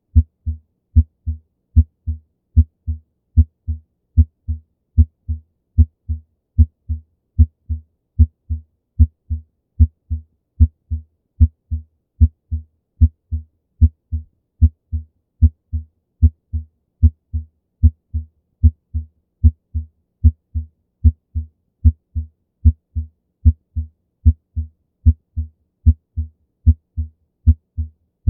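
Normal human heart sounds: a steady lub-dub rhythm of about 75 beats a minute. In each beat the first heart sound (S1) is louder than the second (S2).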